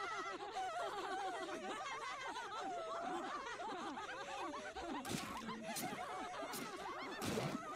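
A group of women's voices laughing together, several overlapping laughs running on for several seconds.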